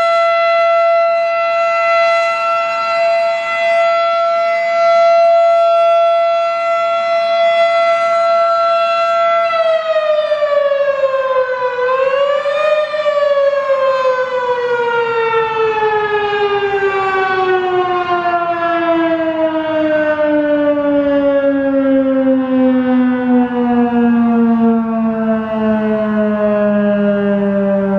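Fedelcode Type 5 fire siren sounding a loud, steady wail that starts to wind down about a third of the way in. It rises again briefly, then keeps sliding lower in pitch as the rotor coasts down.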